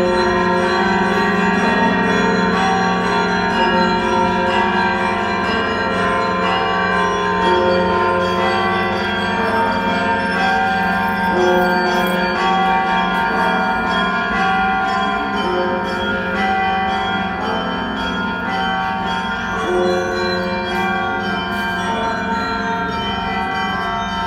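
Peal of the church bells of St. Michael's Golden-Domed Cathedral in Kyiv: several bells of different sizes struck again and again, their ringing overlapping continuously, with a low bell humming steadily beneath the smaller ones.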